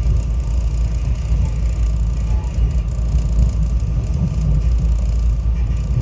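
SEPTA Regional Rail commuter train running, a steady low rumble heard from inside the passenger car.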